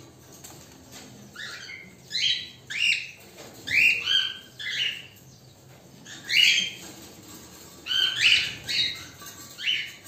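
Cockatiels calling: about a dozen short, sharp chirping calls, coming in clusters with short pauses between them.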